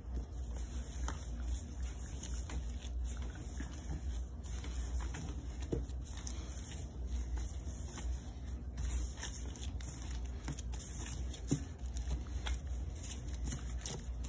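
Soft yeast bread dough being kneaded by hand on a floured table: faint, irregular pushing, folding and patting sounds over a steady low hum.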